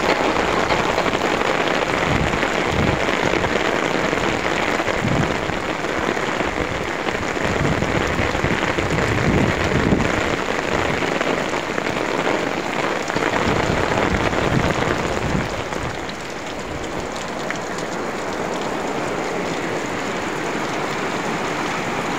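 Heavy rain falling on wet pavement and market stalls, a dense steady hiss with uneven low rumbles through the first part, easing slightly about 16 seconds in.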